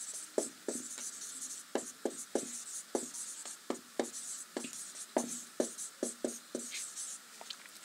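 Marker pen writing on a whiteboard: an irregular run of about twenty short squeaks and scratches as words are written out stroke by stroke.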